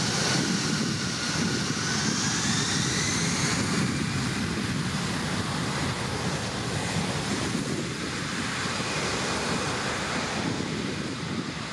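Jet engines of an Airbus A340 rolling away down the runway: a broad rushing roar with thin engine whines gliding in pitch during the first few seconds, slowly fading as the aircraft moves off.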